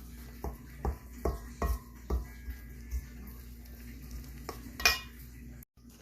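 A kitchen utensil knocking and clinking against a bowl while baking batter is worked: about five quick knocks in the first two seconds, then a single louder clank near the end.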